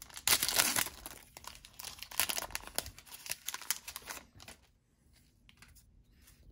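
Foil trading-card pack wrapper crinkling and tearing as it is opened by hand, loudest in the first second, with crackling that dies down after about four seconds.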